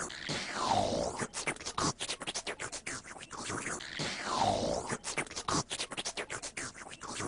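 A looped, scratchy beat: rapid clicks run throughout, with a falling swoop that comes back about every three and a half seconds.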